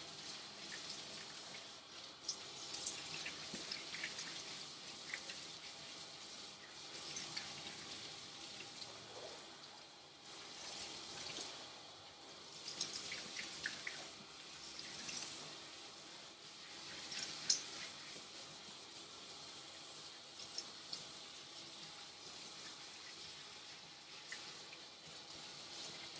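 Water spraying from a hand-held bathing sprayer onto a standard poodle's wet coat and splashing into the grooming tub as conditioner is rinsed out. The hiss swells and fades unevenly as the spray moves over the dog.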